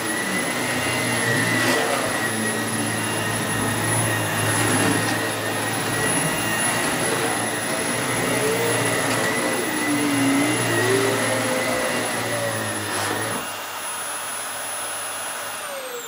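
Vax Air Steerable corded upright vacuum cleaner running over a rug with a steady motor whine. About three seconds before the end it is switched off, and the whine falls as the motor spins down.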